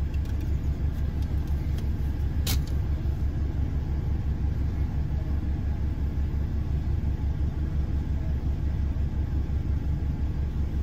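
Pickup truck engine idling, a steady low rumble heard inside the cab, with one sharp click about two and a half seconds in.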